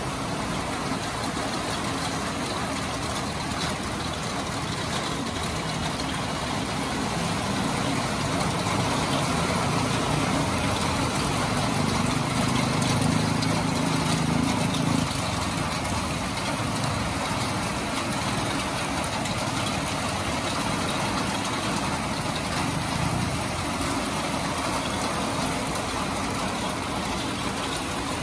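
Heavy rain falling in a steady hiss on a wet street, with passing road traffic. A vehicle engine grows louder about a third of the way in and cuts off abruptly about halfway through.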